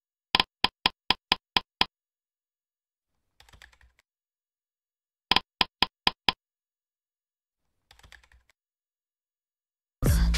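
Keyboard typing sound effect: two quick runs of sharp keystroke clicks, seven and then six, a few seconds apart, each followed by a faint short rustle. Loud pop music starts abruptly near the end.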